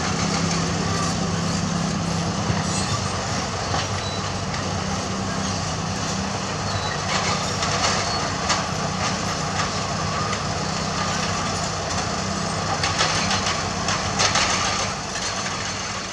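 Heavy construction machinery running: a diesel engine drones steadily, with metallic clanks and rattles coming in bunches around the middle and again near the end. The sound begins to fade out at the very end.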